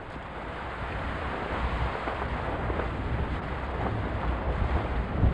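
Wind buffeting the microphone on a sailing yacht under way at sea: a steady rushing rumble that swells and dips, with a stronger gust near the end.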